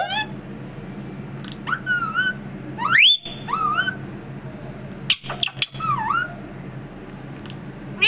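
Indian ringneck parrot making about four short, high-pitched calls that rise and dip in pitch, with a few sharp clicks about five seconds in.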